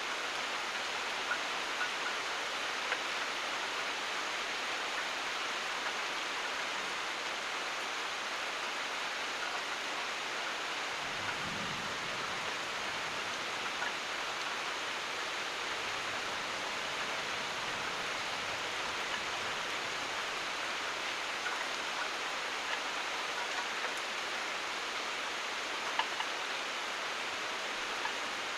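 Steady, heavy rain falling, an even hiss with a few louder drops now and then.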